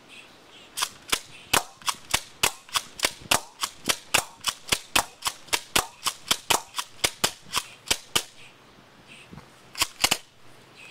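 Rapid airsoft fire at a crushed aluminium can: a quick string of about two dozen sharp cracks, three or four a second, stopping about 8 s in, then two more cracks near the end.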